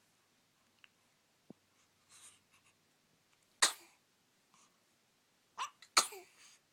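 Baby sneezing twice, each sneeze short and sharp: one about halfway through and one near the end, the second with a smaller sound just before it.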